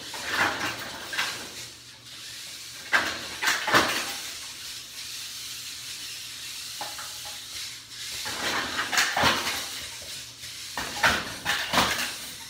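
VEX competition robot driving across the field and moving its metal lift arm: a steady whirring hiss of motors and gears, broken by clanks and rattles of the aluminium frame, loudest about three to four seconds in and in a cluster from about eight seconds on.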